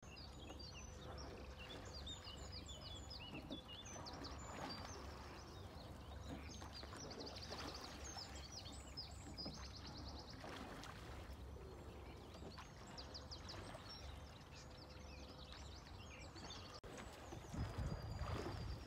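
Small birds singing and chirping in quick, repeated trills, over a low rumble of wind on the microphone that grows gustier near the end.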